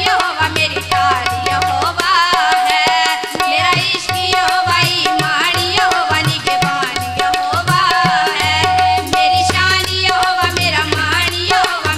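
Two female voices singing a Punjabi Christian devotional song (masihi geet) into microphones, accompanied by tabla: quick right-hand drum strokes over the deep, booming bass of the left-hand drum. A steady held note sounds underneath the voices.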